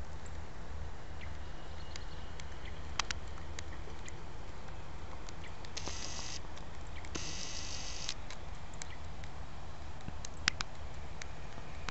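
Wind rumbling steadily on the microphone, with scattered small clicks from the handheld camera. A little after the middle come two short bursts of high buzzing, the first about half a second long and the second about a second long.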